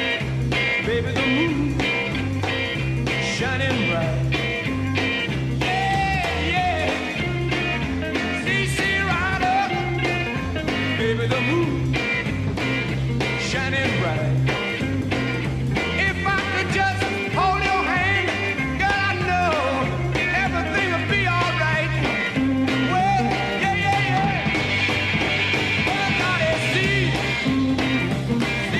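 Live 1960s British blues-rock band playing a wordless passage of the song: drums keeping a steady beat under a walking bass line, with a lead line of sliding, bending notes over the top.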